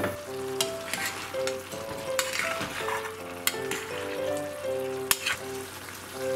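Reduced beef tendon and daikon stew sizzling in a metal saucepan while a metal spoon stirs it, scraping and clinking sharply against the pan several times.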